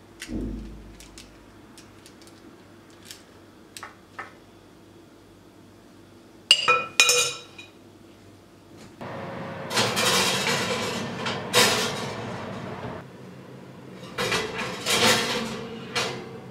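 A glass baking dish handled at an oven: a few light taps, then sharp ringing clinks of glass on metal and stretches of scraping and rattling as the dish slides over the oven rack.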